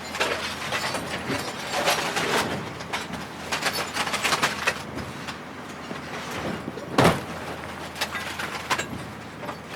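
Plastic and glass appliances being smashed and crushed: a continuous clatter of cracks, crunches and knocks, with one sharp crash about seven seconds in standing out as the loudest.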